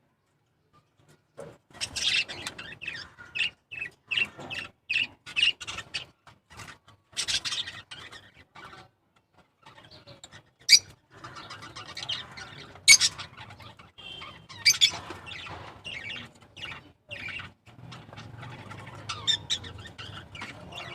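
Small pet parrots, peach-faced lovebirds and budgerigars, chirping in many short, sharp, irregular calls. The chirping starts about a second and a half in, with a few louder calls in the middle.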